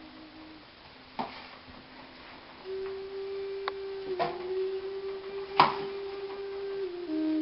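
Chef's knife knocking on a cutting board a few times as vegetables are sliced, the loudest knock about three-quarters of the way through, over soft long held musical tones.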